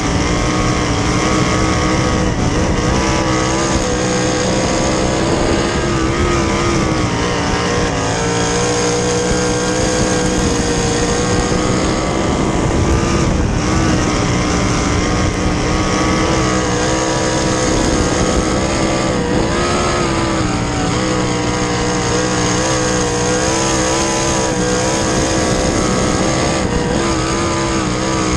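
Winged sprint car's 410 V8 engine at racing speed, recorded onboard. The engine note sags and climbs back up every few seconds as the throttle is eased and reopened through each corner.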